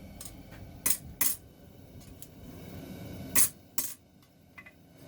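Sharp metal-on-metal clinks of steel forging tools and the knife blank, in two pairs about a third of a second apart.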